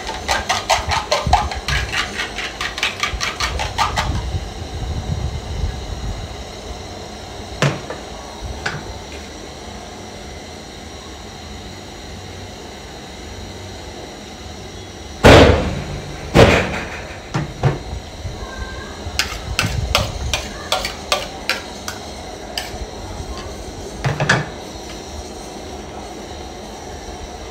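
Metal spoon clicking and scraping against a bowl in quick taps as food is mixed. About halfway through come two loud metal clanks from a pot lid, then scattered taps and a single knock near the end.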